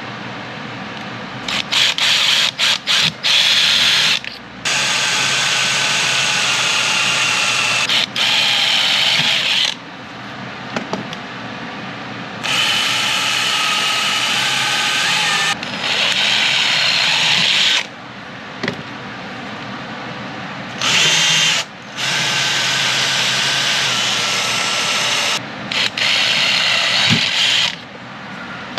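Power drill boring holes through a metal trim strip. A few quick trigger blips come first, then several runs of a few seconds each with a steady motor whine and short pauses between them.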